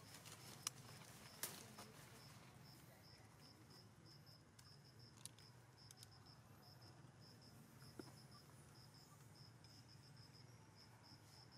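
Faint chirping of an insect: a high note repeated evenly about three or four times a second, with a couple of soft clicks in the first two seconds.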